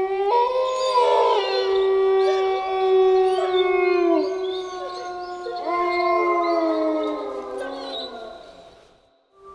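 A pack of wolves howling in chorus: several long howls overlap, some sliding down in pitch, and the chorus fades out near the end.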